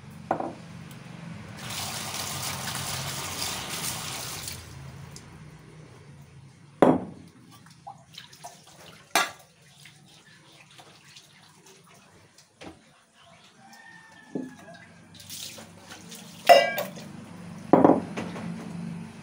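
Water poured and splashing over a stone grinding slab and its stone roller for a few seconds as they are rinsed, then several sharp knocks as the heavy stone roller is set down and moved on the slab.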